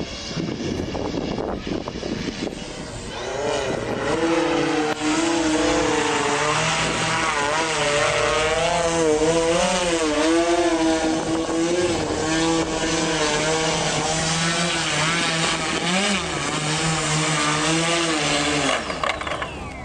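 Multirotor drone's propellers buzzing in flight, the pitch wavering up and down as the motors adjust speed, and getting louder about three seconds in.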